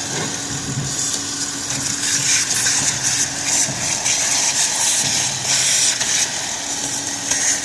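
Ford Fusion engine running at idle with a hard misfire caused by rodent damage, giving an uneven, stumbling low pulse under a steady hum and a hiss that swells and fades.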